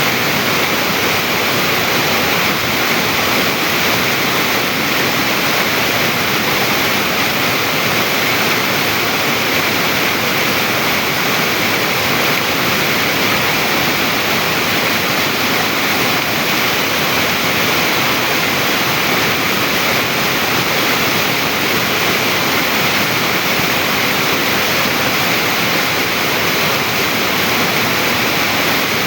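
Stream water rushing over rock, a loud, steady, even rush of water that does not change.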